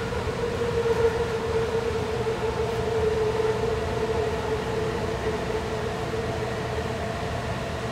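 AirTrain JFK people-mover car heard from inside while running along its guideway: a steady high propulsion whine over a constant low rumble.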